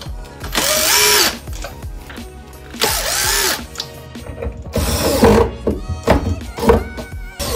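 Makita cordless drill-driver driving screws into cabinet door hinges in three short runs, its motor whirring up and back down each time, followed by a few knocks near the end. Background music plays throughout.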